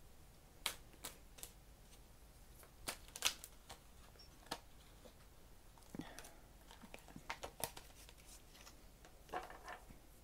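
A deck of tarot cards being shuffled by hand: soft, scattered taps and flicks of the cards, a dozen or so, at an uneven pace.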